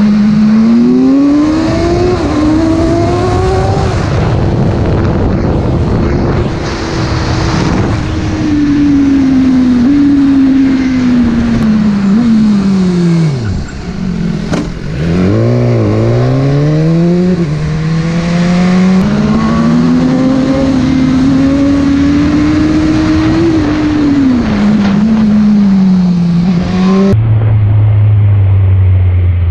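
BMW motorcycle engine under way, its note rising and falling as the rider accelerates, shifts and eases off, with wind rushing over the microphone. About halfway through the note sinks low as the bike slows, then climbs again. Near the end it drops to a steady low note.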